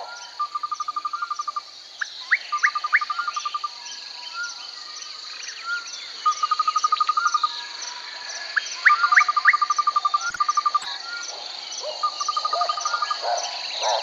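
Night chorus of insects and frogs: a steady high insect drone, with repeated pulsed trills about a second long every few seconds and short rising chirps. Frogs croak in quick runs near the end.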